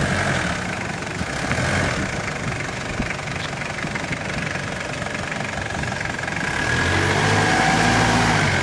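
Mitsubishi Delica Space Gear van's diesel engine running as the van drives slowly up to and past, growing louder near the end as it comes close.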